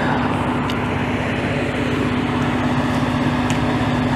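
Fire truck's diesel engine idling, a steady low hum.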